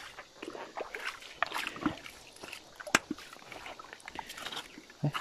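Shallow stream water sloshing and river stones clicking against each other as a person works among the rocks, with one sharp click about three seconds in.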